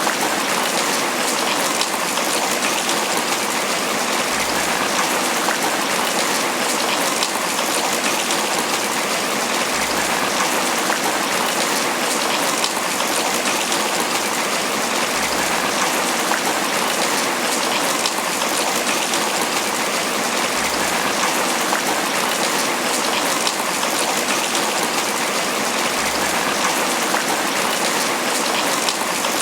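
Steady tropical rain falling on banana leaves, a dense, even patter of drops that keeps on without change.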